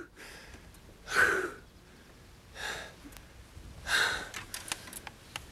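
A man breathing hard in three heavy gasps about a second and a half apart, the first the loudest, the breathing of an angler overcome with excitement after a huge catch.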